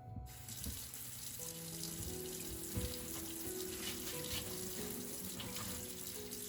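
Kitchen tap running into a sink, a steady rush of water that starts just after the beginning, over soft background music.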